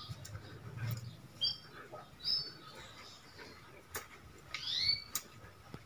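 Faint bird chirps: a few short high chirps, then a pair of quick curving calls near the end. A couple of sharp clicks about four and five seconds in.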